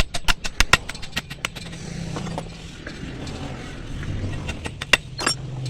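A quick run of sharp metal clinks, several a second for about a second and a half, then two more clinks near the end over a low steady hum.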